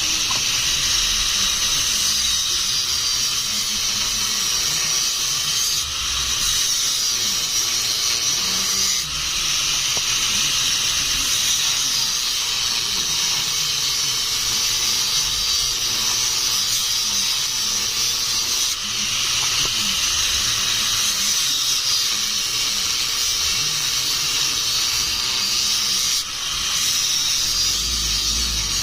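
Steady, loud hissing noise that breaks off briefly every few seconds.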